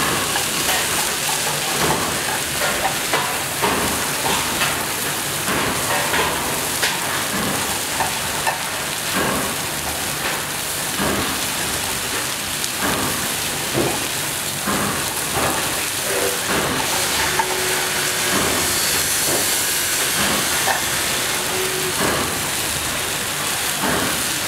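Stir-fried noodles and bean sprouts sizzling steadily in a hot frying pan, with frequent clacks and scrapes as a spatula and chopsticks toss them against the pan.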